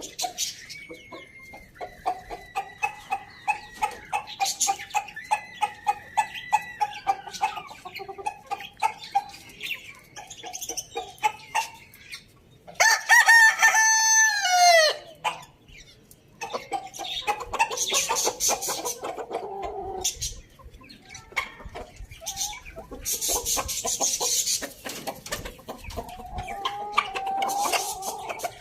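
Roosters crowing, several drawn-out calls, the loudest about halfway through ending in a falling pitch, with chickens clucking in between.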